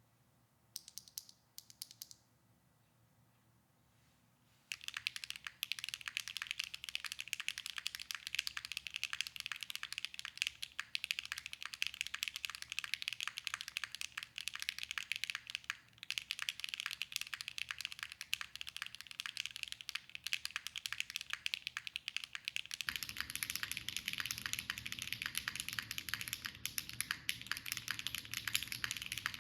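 Mechanical keyboard with HMX Cheese linear switches (Mode Envoy, polycarbonate case with copper weight, aluminium plate, gasket-style lattice-block mount, no foam): first a handful of single switch presses, then about five seconds in, continuous fast typing with a bright clack. Near the end the typing is heard through an iPhone's microphone, with more low hiss under it.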